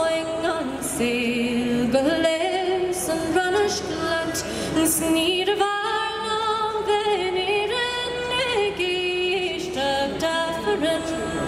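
A woman singing solo and unaccompanied, a slow melody of long held notes with a slight waver and small ornamental turns between them.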